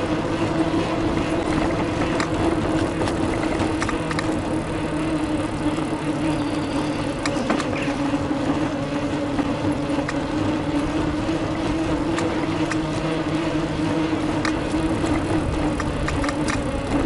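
Riding noise of a moving bicycle: a steady hum and low rumble, with scattered small clicks and rattles.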